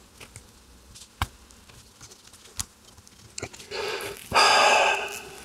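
A few small clicks from fingers handling a radio's dial cord, then, almost four seconds in, a loud rush of breath lasting about a second.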